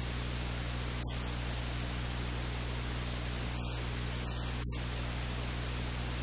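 Steady hiss like static, with a constant low hum beneath it.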